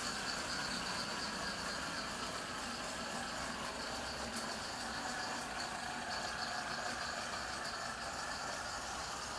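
LEGO flywheel-powered train rolling around plastic LEGO track: a steady whirring hum from the spinning flywheel and running wheels, with a few faint clicks.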